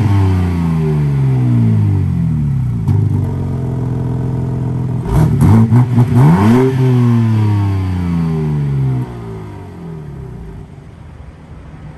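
BMW M3 G80's 3.0-litre twin-turbo straight-six revved through its quad-tip exhaust: the revs fall away slowly from a high peak at the start, then a burst of several quick throttle blips about five seconds in, the last falling slowly back. The engine settles to a quieter idle near the end.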